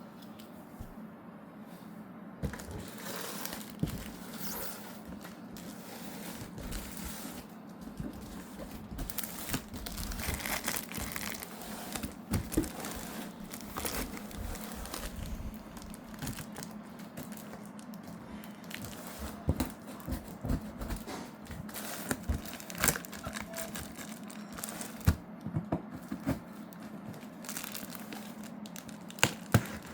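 Packaging being opened and handled: crinkling and tearing of wrapping, with scattered sharp knocks and taps, over a low steady hum.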